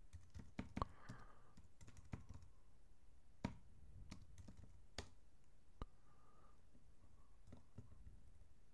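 Faint, irregular keystrokes on a computer keyboard, with a few louder taps among them.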